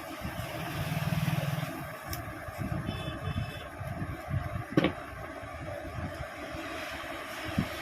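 Steady background of road traffic, with a low hum about a second in, a short high tone near three seconds, and a single sharp knock just before five seconds.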